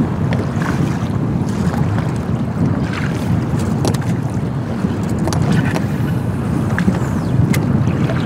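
Wind buffeting the microphone in a steady low rumble, over the slap of choppy waves against a boat hull, with a few light clicks scattered through.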